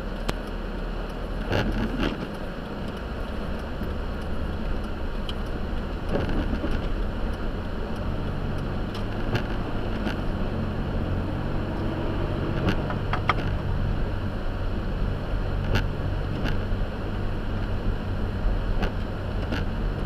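Car driving on snowy roads, heard from inside the cabin: a steady rumble of engine and tyres, with the engine hum growing steadier about eight seconds in. Scattered light clicks and knocks sound through it.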